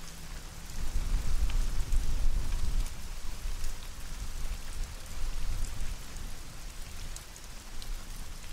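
Rain falling, with scattered drop ticks and a deep low rumble, loudest about one to three seconds in and then slowly easing off.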